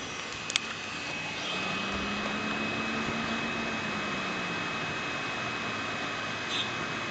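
Desktop PC's fans whirring steadily, with a sharp click about half a second in and a steady high whine from then on; a low hum swells and fades in the middle.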